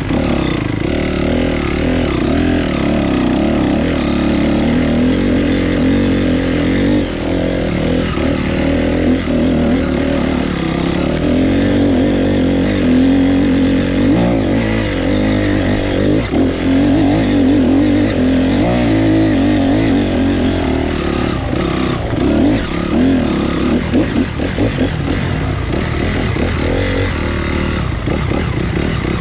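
Dirt bike engine running continuously while being ridden, its pitch rising and falling with the throttle.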